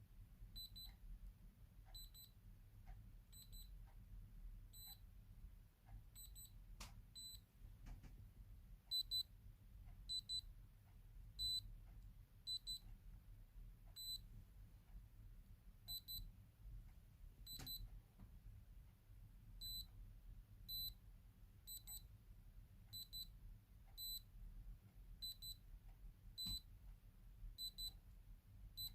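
Fingerprint padlock beeping: short, high double beeps repeating about every 0.7 s with a few gaps while it is in fingerprint-registration mode. A few faint clicks from handling the lock.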